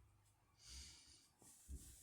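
Near silence, with one faint short breath about three-quarters of a second in and a soft low bump near the end.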